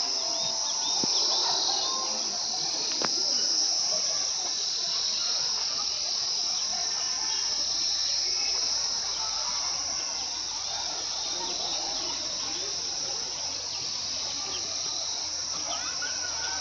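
Steady, high-pitched insect chorus shrilling without a break.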